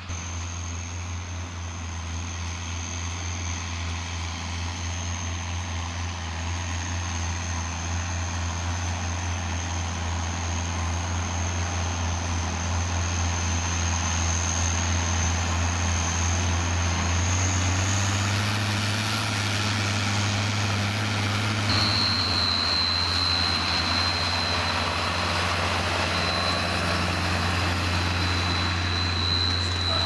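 Tractor diesel engines working steadily under load as they pull reversible ploughs through the soil. They grow louder as the tractors come closer, and a thin high whine sits over the engine drone.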